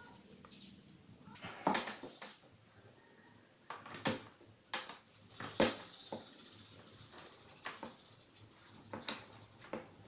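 Handling noise from a drum vacuum cleaner: scattered plastic clicks and knocks, about nine at irregular intervals, as its power cord is wound onto the cord hooks and its lid and latch are handled.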